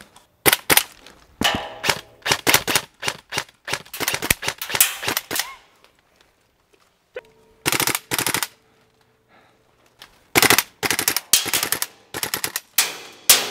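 Airsoft rifles firing in rapid bursts of sharp clicks: several bursts over the first five seconds, a short burst near eight seconds, and more from about ten seconds on.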